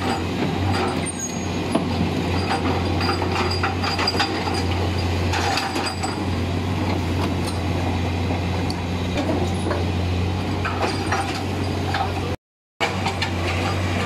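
Komatsu PC200 excavator's diesel engine running steadily under load while its hydraulic breaker hammers at rock, with sharp knocks and clatter over the engine hum. The sound cuts out for about half a second near the end.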